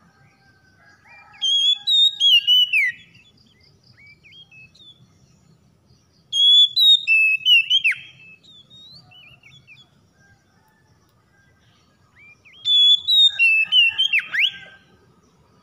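Oriental magpie-robin singing: three phrases of loud whistled notes with quick up-and-down sweeps, each about two seconds long, a few seconds apart.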